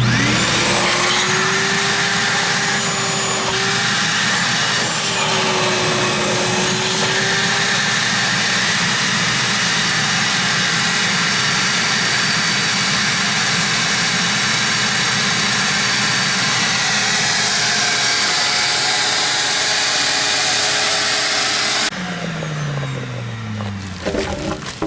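Wet/dry shop vacuum switched on and running steadily on an air conditioner's condensate drain line to suck out a clog, its motor whine wavering in the first several seconds. About 22 seconds in it is switched off and the motor winds down with a falling whine.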